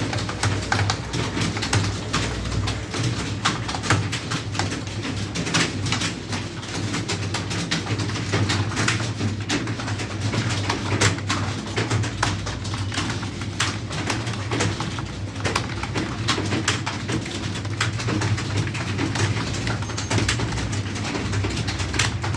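Rapid, irregular computer keyboard keystrokes from typing, over a steady low hum.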